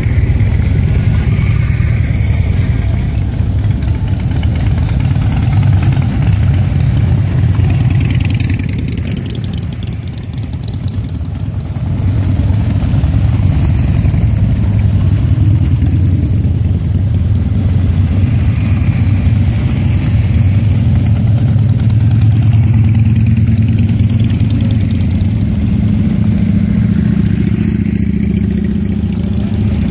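A procession of V-twin cruiser and touring motorcycles riding past slowly one after another, their engines rumbling steadily at low speed. The rumble eases briefly about a third of the way in, and a nearer bike's engine note rises near the end.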